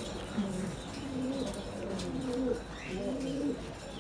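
Domestic pigeons cooing, several birds overlapping in a run of low, repeated coos.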